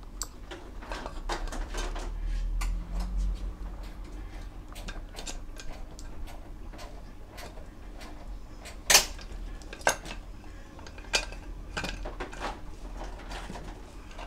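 Metal clinks and clicks of a new motorcycle transmission gear cluster (gear shafts, shift drum and forks) being seated by hand into an aluminium crankcase half, with a few sharper clinks in the second half.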